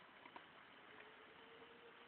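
Near silence with two faint clicks early on and a faint steady low hum through the second half.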